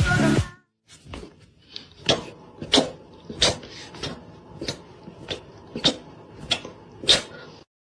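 Dance music cuts off, followed by about a dozen sharp taps or knocks at a fairly even pace of roughly one every two-thirds of a second.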